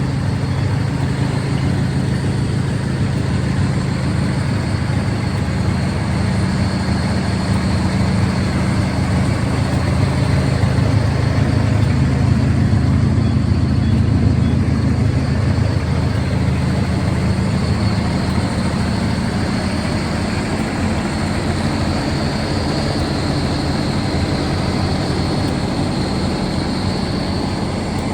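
Engine running steadily at a constant speed, a low even drone with a faint high steady whine over it.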